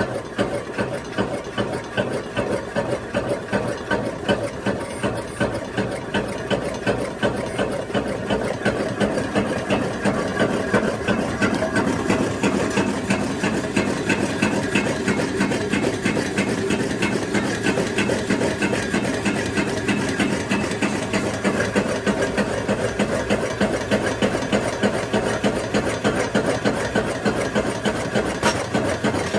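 Homemade coal-fired Stirling engine running, its rods, pistons and flywheel giving a steady rhythmic mechanical clatter that grows louder over the first several seconds, then holds even.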